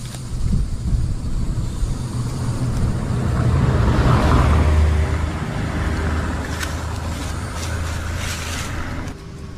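Road traffic noise: vehicles running on the road with a steady low engine hum, swelling as a vehicle passes close about four seconds in.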